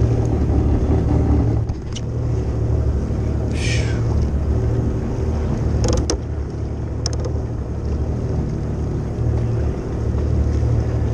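Jet ski engine running steadily, with a short hiss about three and a half seconds in and a few sharp clicks around six and seven seconds.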